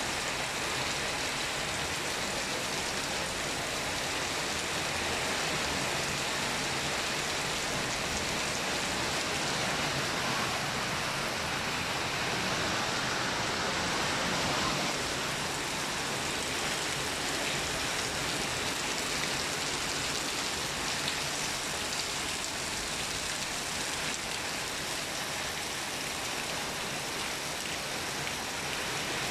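Steady rain falling, an even hiss of water with no breaks.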